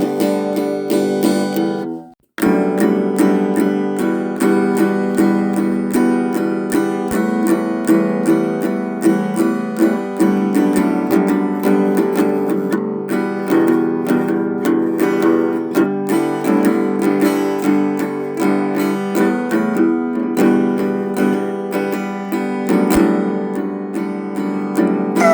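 Acoustic guitar music, plucked and strummed, with a brief break about two seconds in.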